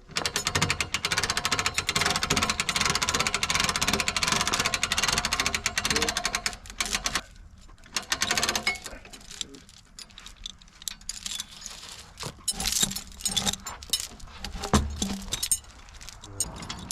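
A small motor runs steadily for about seven seconds and then stops, followed by scattered metal clinks and knocks.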